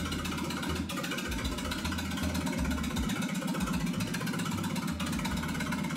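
International Harvester 300 Utility tractor's gasoline engine running steadily with its muffler removed, so the exhaust is open and loud. Without the back pressure of the exhaust the engine does not run as nicely.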